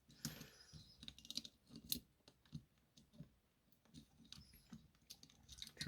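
Faint, scattered clicks and light scrapes from handling a small circuit board and its chip, with one sharper tick about two seconds in.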